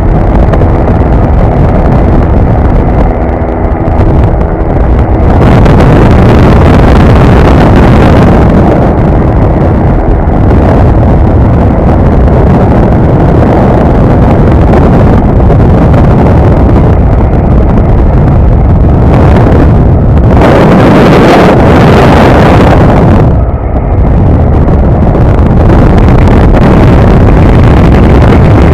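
Quik GT450 flexwing microlight in cruising flight: its Rotax 912 engine and pusher propeller running steadily under heavy wind rush on the microphone. The wind noise swells about five seconds in and again around twenty seconds in, dipping briefly just after.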